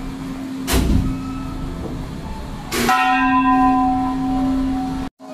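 A temple bell struck once about three seconds in, ringing with several clear overtones that die away over about two seconds, over a steady low hum. A dull knock comes a little under a second in.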